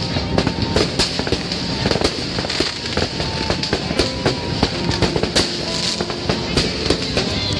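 Many fireworks and firecrackers going off at once: a dense, unbroken run of sharp bangs and cracks, several a second.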